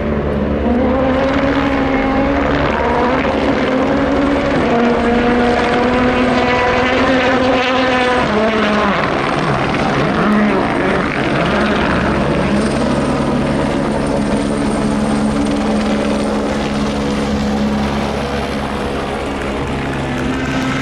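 Helicopter flying over the rally stage: a steady rotor and engine drone whose pitch drifts up and down as it moves.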